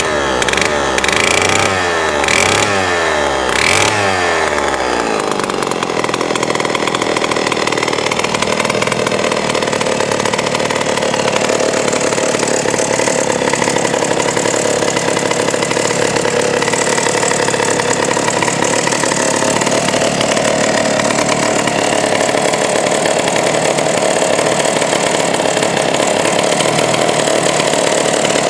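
McCulloch Model 73 gear-drive chainsaw, a 120 cc two-stroke, revving up and down a few times, then running at a steady speed from about five seconds in.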